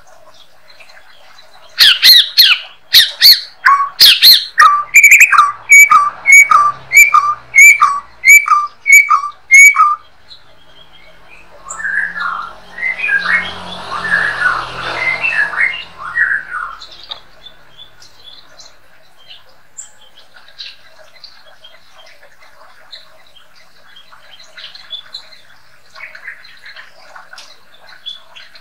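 White-rumped shama (murai batu) singing: a few loud sharp notes, then the same clear two-part whistle repeated about eight times, roughly one a second, followed by a brief busier phrase and faint chirping.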